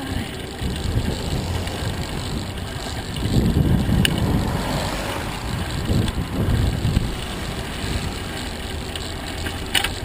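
Wind buffeting the microphone of a handlebar-mounted camera on a moving bicycle, gusting unevenly, with tyre and road noise underneath. Two brief clicks come through, one about four seconds in and one near the end.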